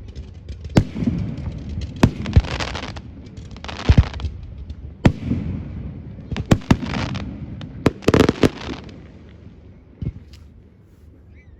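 Fireworks display: sharp bangs of exploding shells about a second apart, several followed by crackling, with a rapid cluster of bangs about eight seconds in, then dying down near the end.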